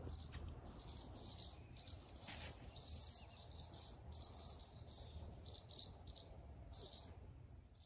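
Swallows twittering: faint, high chirping calls in short, irregular bursts, about one or two a second.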